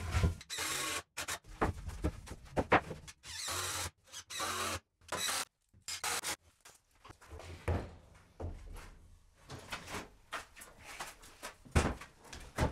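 Woodworking sounds in short, abruptly cut snatches: sharp knocks and clunks of timber being handled and fixed, and brief bursts of hiss-like noise, with the loudest knock near the end.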